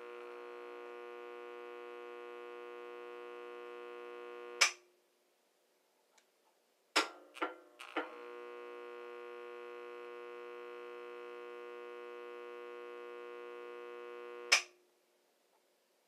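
Fluorescent light humming steadily, cut off by a sharp click of its metal switch a little over four seconds in. About two and a half seconds later three clicks and clinks come as it is switched on and the tube starts up, then the same hum runs again for about six seconds until another click switches it off.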